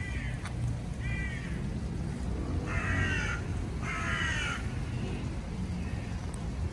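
A crow cawing: two short calls in the first second, then two louder, longer caws about three and four seconds in, and fainter ones after, over a low steady rumble.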